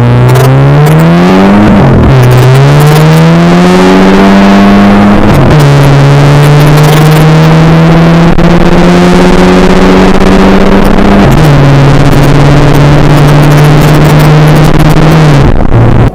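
Alfa Romeo Giulietta 1.4 TB's turbocharged four-cylinder, fitted with a custom downpipe and ECU remap, accelerating through the gears with a loud exhaust. The note climbs in pitch and drops at each of three upshifts, climbing more slowly in the higher gears and nearly holding steady in the last.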